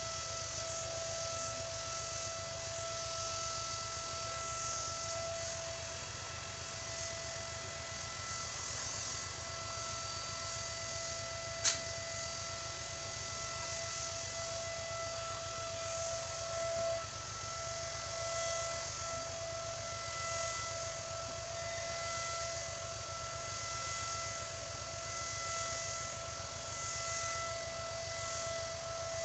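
Steady mechanical whine with an even hiss beneath it, most likely from the air compressor that feeds the hose and paint spray gun. A single sharp click sounds a little before the halfway point.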